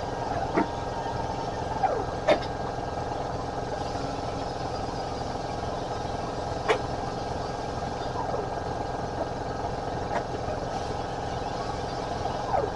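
Steady hum of an engine or machine running in the shop, with a few sharp metal clicks as pliers work a welded-up broken exhaust bolt out of an aluminium cylinder head.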